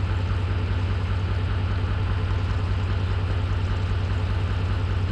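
A steady low mechanical hum, like an engine running at idle, holding an even level throughout.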